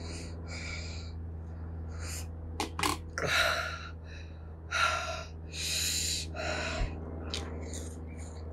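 A series of sharp, hissing breaths through the open mouth, in and out, from a person suffering the burn of a just-eaten Carolina Reaper pepper. The strongest breaths come about three seconds in and again around five to six seconds.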